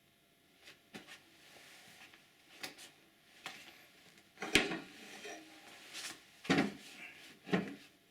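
Hydraulic jig being handled and taken off a coiled tubing connector: a string of irregular metal knocks and clunks with some scraping between them, the sharpest knock about halfway through.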